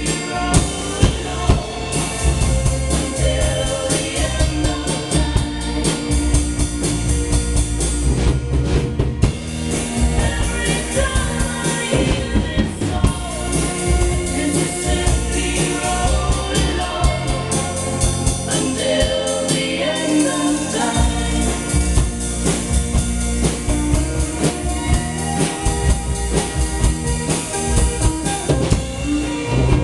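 Gretsch drum kit played live along to a recorded pop song with singing: snare, bass drum and cymbal hits over the backing track.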